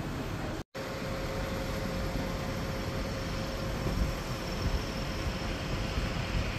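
Steady rumbling running noise of a vehicle in motion, with a faint steady hum; under a second in it cuts out to silence for a moment.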